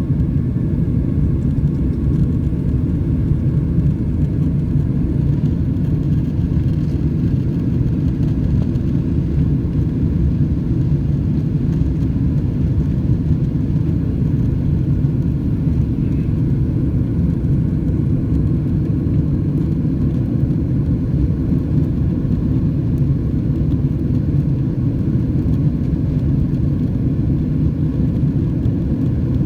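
Steady low rumble of a Boeing 767-300ER airliner's jet engines and rushing air, with a faint whine above it, holding even throughout.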